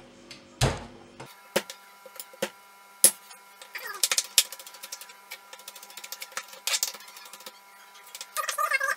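Large chef's knife on a wooden cutting board: a heavy thump about a second in as garlic cloves are crushed under the flat of the blade, then rapid light tapping from about four seconds in as the knife chops the garlic.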